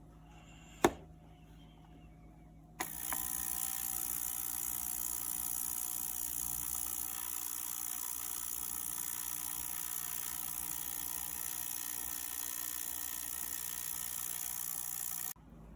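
Ultrasonic cleaner running: a steady high buzzing hiss that starts about three seconds in and cuts off suddenly near the end. A single click comes about a second in.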